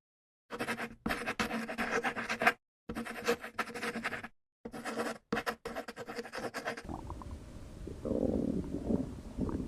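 Human stomach rumbling and gurgling. For most of the clip it is a crackly recording chopped into short pieces with brief silent gaps between them. About seven seconds in, it gives way to a steadier, lower rumble.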